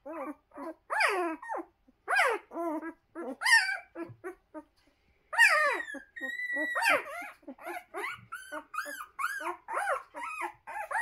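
Puppies about two weeks old whimpering and squealing, a busy run of short rising-and-falling cries. About five seconds in comes one longer, held cry, and after that the cries come quicker, about three a second.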